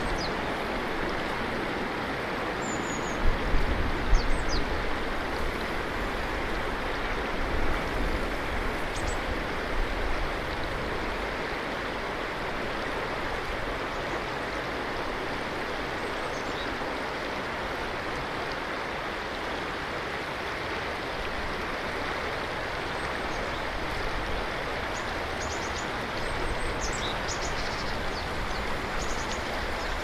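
Ishikari River water flowing where a tributary joins the main stream: a steady, even rush. A few faint short high chirps come and go, and a couple of brief low thumps stand out about three and four seconds in.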